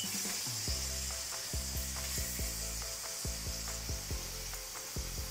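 Floured chicken pieces sizzling steadily as they shallow-fry in butter and oil in a pan, while being turned over with tongs.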